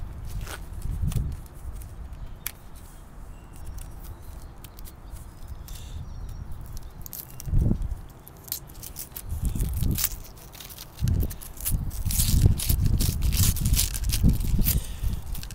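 A roll of Mentos being torn open: the paper-and-foil wrapper crinkling and tearing in short crackles, busier in the second half, then the mints tipping out onto concrete with light clicks near the end. Low rumbling bursts of wind on the microphone come and go beneath it.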